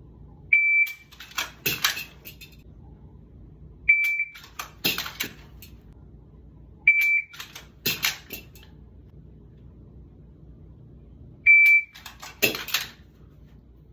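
A shot timer gives four short, high start beeps, each followed about a second later by a quick run of clicks and rustles: the draw from a belt holster and the dry-fired trigger click of a CZ P10c pistol.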